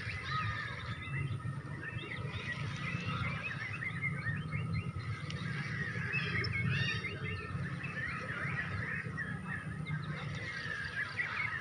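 Many birds chirping at once in a dense, overlapping chatter, over a steady low rumble.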